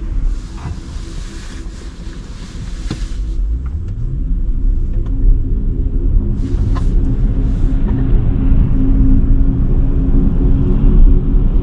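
Cadillac Lyriq electric SUV driving on a wet road: a low road rumble with steady humming tones from the drivetrain. About four seconds in, a tone rises in pitch and the rumble grows louder as the car speeds up, with a brief hiss a few seconds later.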